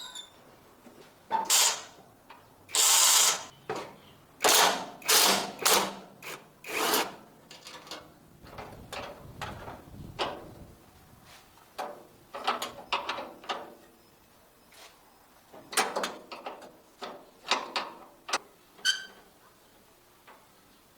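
Hand tools working on tractor metal: irregular clanks, scrapes and bursts of ratcheting, including a run of four quick strokes, with short pauses between them.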